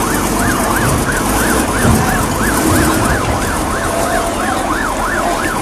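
Ambulance siren in a fast yelp, its pitch sweeping up and down about three times a second over a noisy background.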